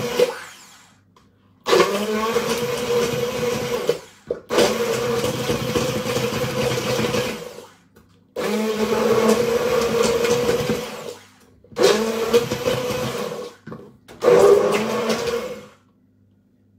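Handheld immersion blender puréeing strawberries and blueberries in a glass bowl. It runs in five bursts of about two to three seconds, stopping briefly in between, as the blender keeps cutting out.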